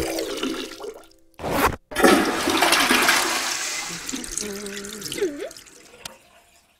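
Toilet flushing: a short whoosh, then a rush of water that fades out over about three seconds.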